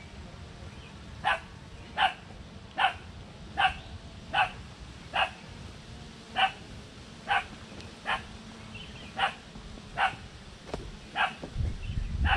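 A dog barking steadily, about a dozen short barks at roughly one a second. A low rumble comes up near the end.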